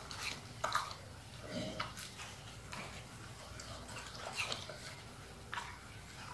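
Siberian husky eating watermelon out of a halved rind: wet chewing, licking and smacking in irregular bursts of short clicks.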